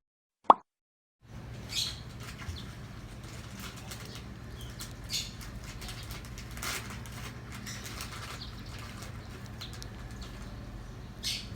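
A single sharp pop about half a second in, then young African lovebirds stirring with faint, scattered flutters and rustles over a steady low hum.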